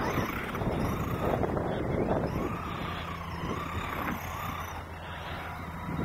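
Electric motor of an Arrma Raider RC buggy, whining up and down in pitch as the car speeds up and slows again and again. Gusty noise covers it in the first couple of seconds.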